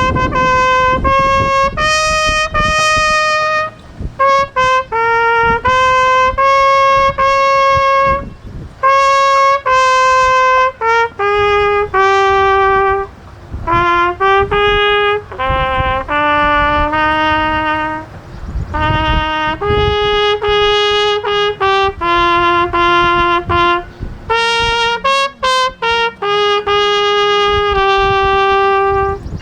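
Solo trumpet playing a slow melody, one held note after another with short breaks between phrases.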